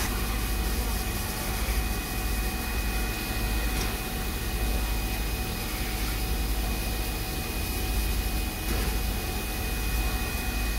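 Streamlined C38-class steam locomotive 3801 standing at the platform with steam up: a steady hiss over a low rumble, with a thin steady whine.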